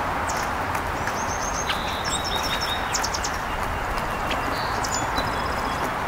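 Small birds chirping: quick runs of high notes about two seconds in and again around three seconds. Faint ticks of California quail pecking seed off a wooden picnic table run through it, over a steady rushing background noise.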